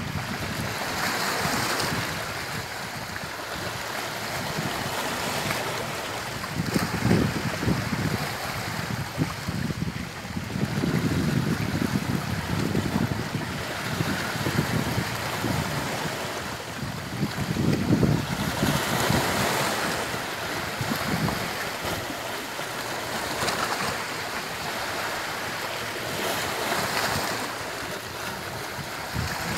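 Sea waves breaking and washing on a shore, the surf swelling and easing every few seconds, with some wind on the microphone.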